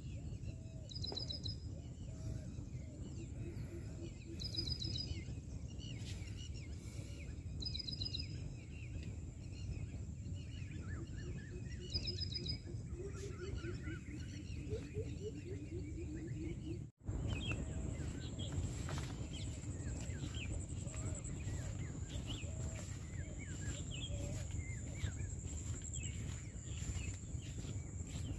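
Field ambience with birds calling: a short, high double note repeats every few seconds in the first half, with other chirps scattered throughout, over a steady low rumble. The sound cuts out for an instant a little past halfway.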